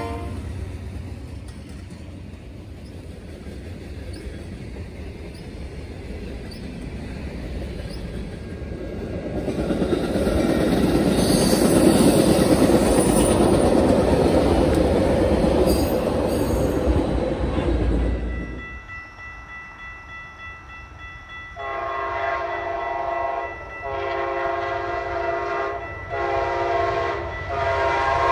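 Canadian Pacific diesel freight locomotives rumbling past, followed by the louder rush of Metra bilevel commuter cars going by. Then a grade crossing's warning bells ring and an approaching train sounds its horn in the long, long, short, long crossing pattern.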